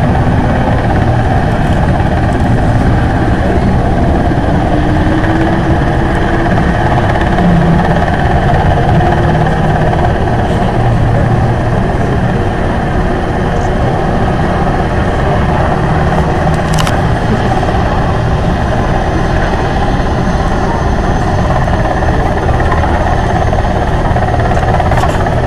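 Lockheed P-3C Orion's four turboprop engines running with a loud, steady drone while the aircraft is on the ground before takeoff.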